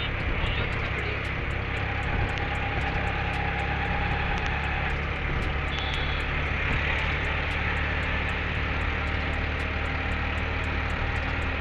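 Engine and road noise heard from inside a moving vehicle in city traffic: a steady low engine hum under a continuous rush of road and traffic noise.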